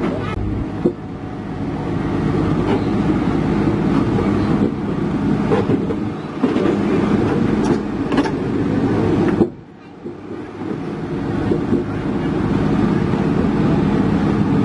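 Diesel engine of an Isuzu Giga self-loader truck running steadily under way. About two-thirds through it drops away sharply for about a second, then builds back up.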